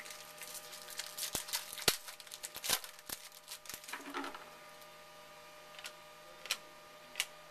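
Trading cards and foil packs being handled at a counter: a quick run of clicks and rustles for about four seconds, then a few single taps as cards are set down. A steady electrical hum sits underneath.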